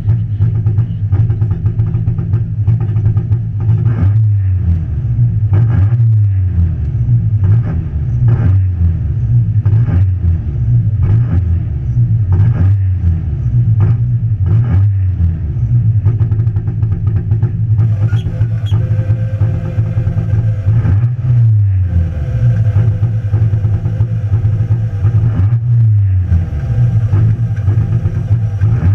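Competition car's engine running at a standstill, heard from inside the stripped cabin, its revs rising and falling again and again as the throttle is blipped every second or two.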